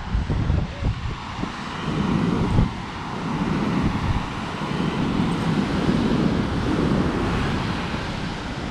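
Wind buffeting a GoPro's built-in microphone in an uneven low rumble, over a steady hiss of surf breaking on the beach.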